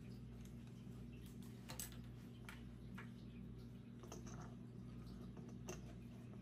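Faint, scattered plastic clicks and taps as a Rode VideoMic GO II shotgun microphone is handled and fitted onto a camera's hot shoe, over a low steady hum.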